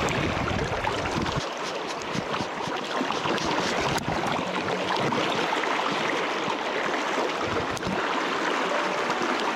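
Steady rush of river water around a drift boat, an even hiss with no tones in it, with a low rumble during the first second and a half.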